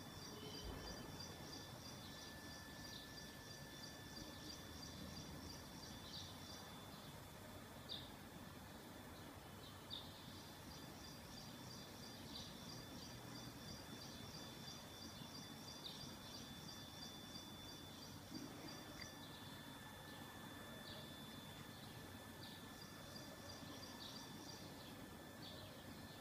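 Faint outdoor ambience of insects trilling: long runs of fast, high pulses that stop and restart, over a steady high whine, with short high chirps every second or two.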